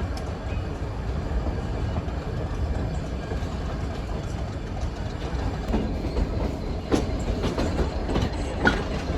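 Nilgiri Mountain Railway metre-gauge toy train running, a steady low rumble with wheels clicking over the rail joints, the clicks and knocks becoming more frequent from about halfway through.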